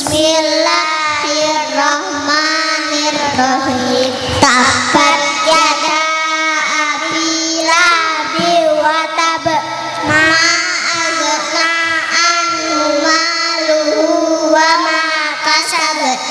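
Group of young girls reciting a short Quran surah together, chanted to a sung melody.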